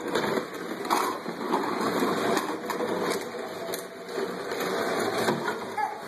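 Plastic toy doll cradle pushed across a hard kitchen floor by a toddler, its legs scraping and the frame rattling continuously with small knocks.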